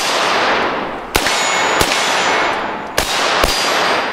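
AR-style rifle, the MGS Firearms Citizen, fired quickly at close targets: a shot right at the start, then two quick pairs of shots. Each shot trails off in a long echo, with faint ringing tones over some of the tails.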